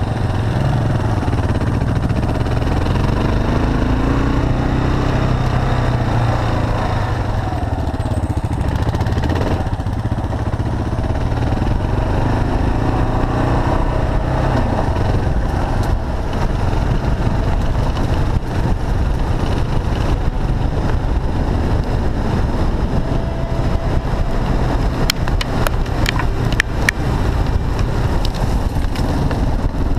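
Kawasaki KLR 650's single-cylinder four-stroke engine running under way, its pitch rising and falling with the throttle over a steady low rumble. There are a few sharp clicks near the end.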